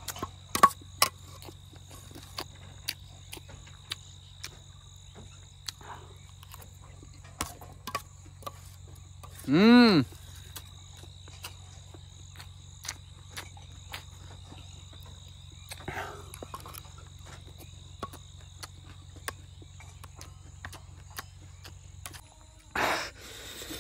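A metal spoon clinking and scraping on a steel plate while rice is eaten, a series of short sharp clicks, over a steady high insect drone. About ten seconds in there is a short hummed 'mmm' that rises and falls, and near the end heavy, breathy gasps from the chilli heat.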